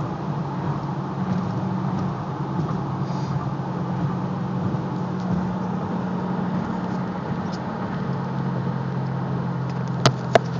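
2008 Ford Mustang GT's 4.6-litre V8 through a Borla exhaust, heard from inside the cabin, running with a steady low drone at an even cruising speed. Two sharp clicks near the end.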